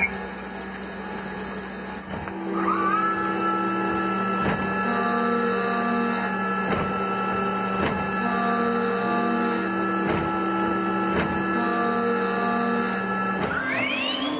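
Mazak Integrex multitasking CNC machine drilling holes in the face of a toothed metal pulley: a steady hum under a tool-spindle whine that rises about two and a half seconds in and then holds, with occasional light knocks. Near the end the spindle whine rises again.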